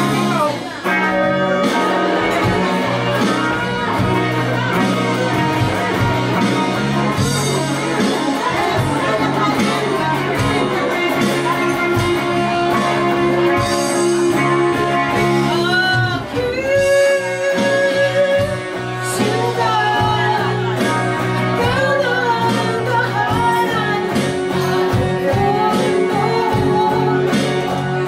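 Live rock band playing with electric guitars and drums, a full steady mix with a bending, wavering lead melody coming in a little past the middle.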